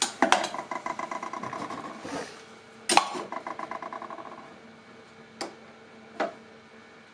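Metal clank, then a rapid run of ringing metallic ticks that fades over about two seconds. This happens twice, followed by two lighter clicks, as the cutter block of a small planer/thicknesser is worked by hand while new blades are fitted.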